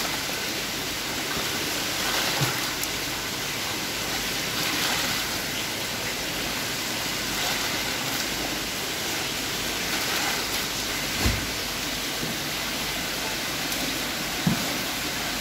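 Water being scooped and poured, splashing steadily into a tub over a plastic crate, with a few brief dull knocks, the last near the end.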